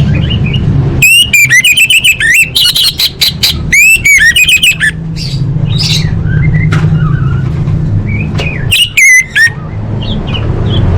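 Orange-headed thrush singing: rapid, loud phrases of whistled notes with sweeping glides, from about a second in to about five seconds, and again in a short burst near nine seconds, over a steady low hum.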